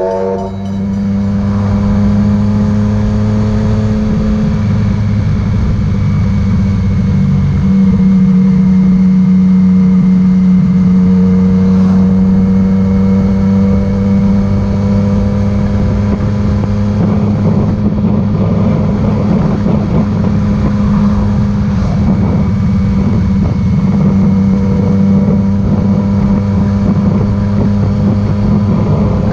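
Yamaha MT-09's three-cylinder engine pulling away, its note rising over the first couple of seconds, then running steadily at cruising speed.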